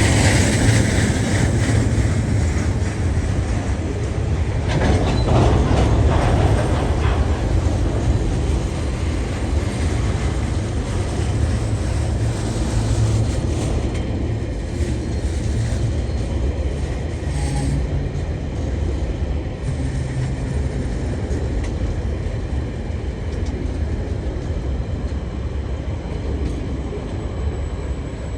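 Empty freight train wagons rolling past, steel wheels rumbling and clattering on the rails. The sound grows gradually quieter.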